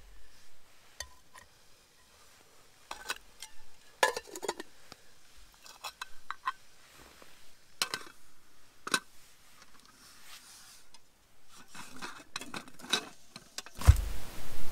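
Scattered light clinks and knocks, like small objects or utensils being handled, then a sudden loud rustling burst with a low thump near the end.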